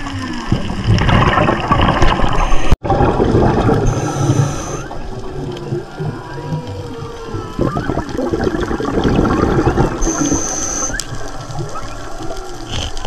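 Whale song heard underwater: faint gliding calls rising and falling in pitch over a constant wash of water and bubbling noise. The sound cuts out for an instant about three seconds in, and a thin high steady tone comes in twice, about four and ten seconds in.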